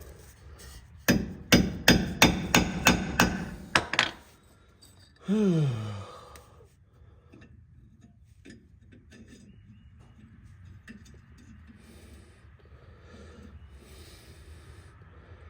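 About ten quick hammer strikes, metal on metal, driving a bolt extractor deeper into a broken yoke bolt in a Dodge 9.25 rear end; they come over about three seconds. They are followed by a man's short groan that falls in pitch.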